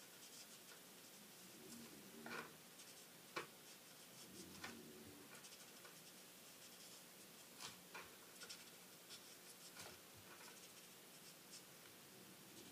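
Faint scratching of a marker nib stroking across a stamped card panel as the image is colored in, with a few light ticks.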